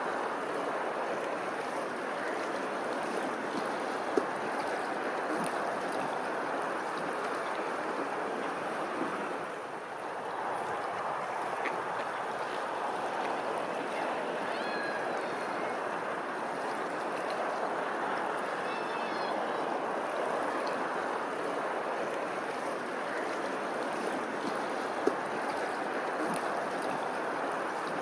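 Steady rush of running water, with two sharp clicks, one about four seconds in and one near the end, and a few faint high chirps in the middle.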